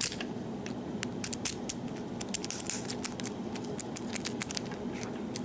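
Small metallic clicks and scrapes of a key working in a pin-tumbler lock, the pins clicking as the key is pushed in and turned, in several short clusters.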